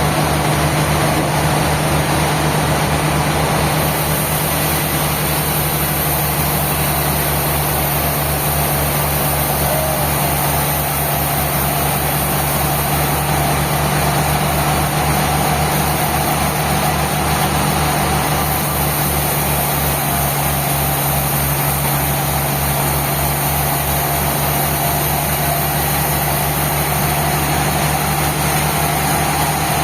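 Sawmill engine running steadily, with a fast, even low throb under a constant hum and no change in speed or load.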